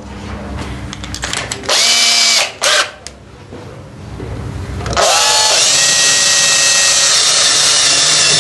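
Handheld electric drill triggered in a short burst about two seconds in, its motor whine rising as it spins up. About five seconds in it runs up to speed again and keeps running steadily, drilling a hole.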